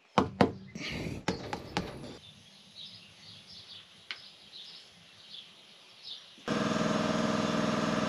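Air hose chuck filling a low dual rear tire on a truck: a few sharp clicks and knocks as the chuck and gauge are handled, faint bird chirps, then about six and a half seconds in a loud, steady buzzing hiss of air going into the tire.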